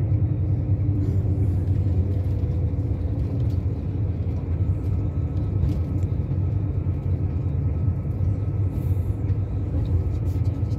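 Steady low rumble of engine and road noise inside a moving vehicle's cabin.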